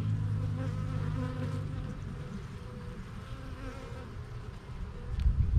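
Honeybees buzzing in flight around an open hive, a steady wavering hum from many bees. A few low thumps and a click come near the end.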